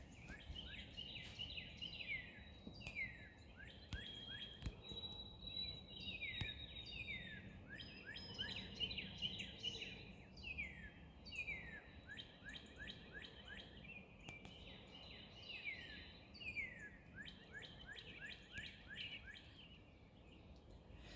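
A chorus of many small birds chirping, quick downward-sliding chirps overlapping one another.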